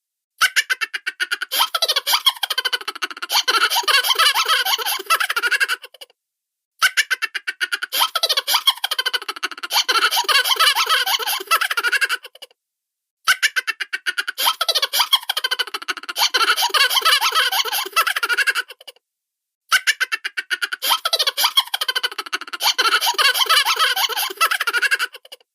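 High-pitched cartoon giggling in rapid, chattering pulses. It comes in four stretches of about six seconds each, separated by short silent gaps.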